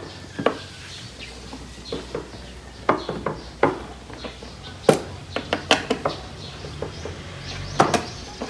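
Scattered sharp clicks and knocks at irregular intervals from a 10 mm tool working the bolts of a Yamaha NMAX scooter's stock seat during its removal.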